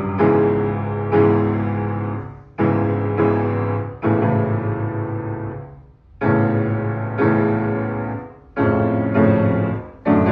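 Fully restored Steinway & Sons Model M grand piano being played: a slow run of full chords over deep bass notes, each struck firmly and left to ring and fade before the next, about ten in all.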